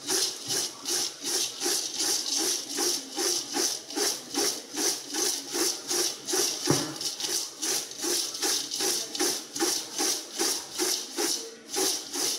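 Dry fried Kerala mixture of crushed sev, boondi, peanuts and green gram being mixed in a vessel, a rhythmic rustling rattle about three times a second, working in the salt and pepper sprinkled on top.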